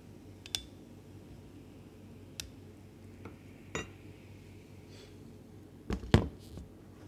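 Glassware and utensils clinking and knocking, a handful of separate sharp clinks, some with a short ring, the loudest pair about six seconds in.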